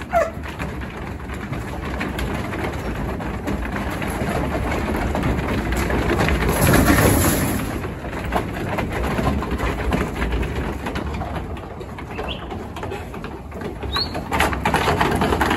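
Sheep hooves and a sheepdog's feet clattering and scuffling over the slatted wooden floor of a shearing shed as the dog moves the sheep through the pens, with a broad rushing swell about seven seconds in.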